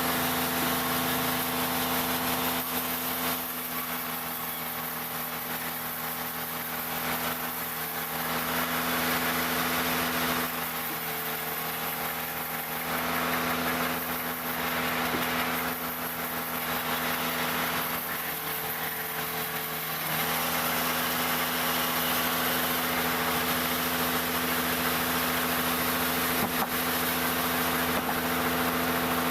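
Engine of a wood-cutting sawmill machine running steadily, with a rushing noise that swells and fades several times in the first two thirds.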